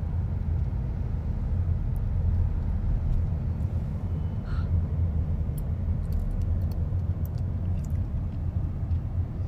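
Low, steady rumble of a car on the move, heard from inside the cabin, with a few faint clicks in the second half.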